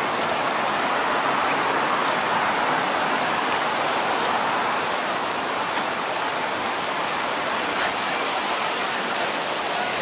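Steady outdoor street hiss of passing traffic and people walking, easing slightly about halfway through.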